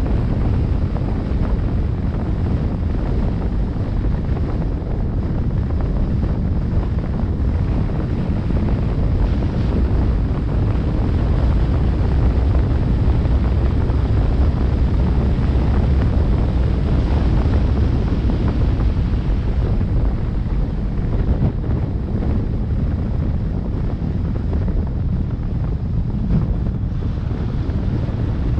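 Wind buffeting the microphone: a steady, loud, low rumbling noise with no distinct tones, a little stronger about halfway through.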